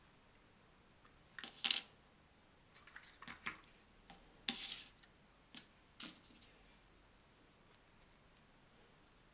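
Small 3D-printed plastic parts handled and set down on a tabletop: a scattering of light clicks and taps over the first six seconds, with one short scrape about halfway through.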